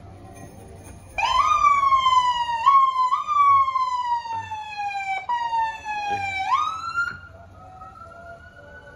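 Police car siren starting suddenly about a second in, its pitch sliding slowly down with two short upward jumps. About two-thirds of the way through it swoops back up, then drops away to a faint held tone.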